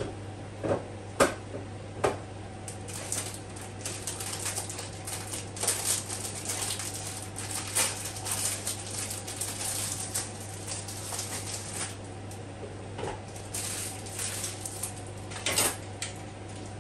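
Kitchen utensils and dishes being handled at a counter: a few sharp clicks and knocks near the start and again near the end, with light rustling and clatter in between, over a steady low hum.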